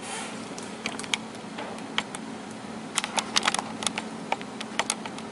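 Irregular light clicks and taps, a dozen or more, bunched most thickly about three seconds in, over a steady low room hum.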